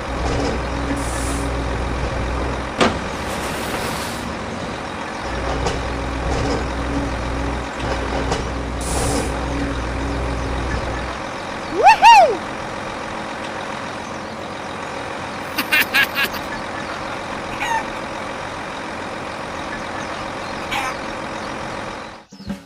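A vehicle engine running steadily, which cuts out about eleven seconds in. It is followed by a short tone that rises and falls, the loudest sound here, and then a few scattered clicks.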